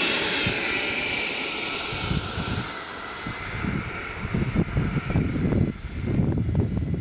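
Whine of the 90mm electric ducted fan on a Freewing T-45 RC jet as it taxis away down the runway. The steady high whine fades over the first few seconds, and wind gusts buffet the microphone in the second half.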